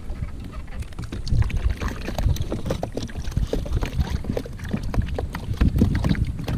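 Wind rumbling on the camera microphone on a kayak at sea, with many small knocks and taps as a freshly caught bait fish is unhooked and handled on the kayak's deck.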